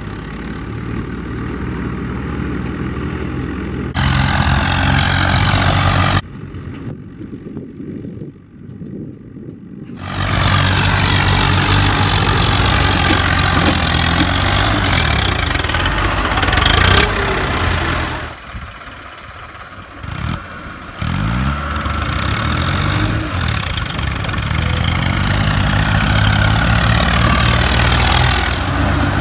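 Diesel farm tractor engines of a Mahindra Arjun 555 and a Swaraj 744 FE running and revving under load as they drive through a muddy field, the engine pitch rising and falling. The sound changes abruptly several times, with two quieter stretches, one before the middle and one about two-thirds through.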